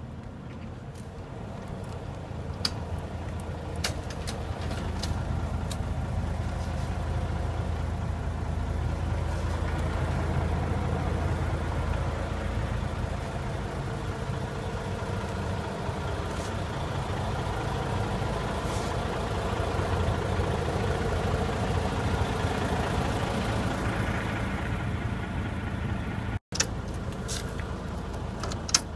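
Kia Parkway coach's 410 PS Powertec diesel engine idling steadily, with a few sharp clicks over it.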